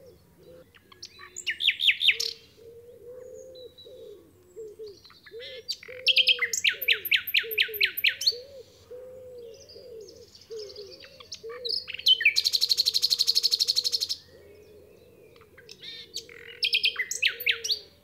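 Common nightingale singing in separate phrases of loud repeated notes with short pauses between. One phrase is a run of quick down-slurred notes, and about two-thirds of the way in comes a very fast, buzzing rattle, the loudest phrase.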